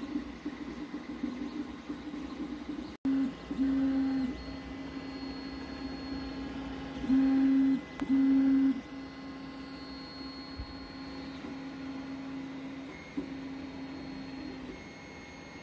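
Creality CR-X 3D printer running a print: its motors hum with a steady tone, over a faint fan hiss. The hum turns louder for several short stretches as the print head moves. The sound cuts out for a moment about three seconds in.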